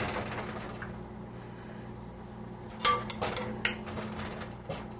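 A serving utensil clinking and tapping against a glass baking dish and plate as roasted vegetables are dished up. One sharp ringing clink comes about three seconds in, then a few softer taps, over a faint steady hum.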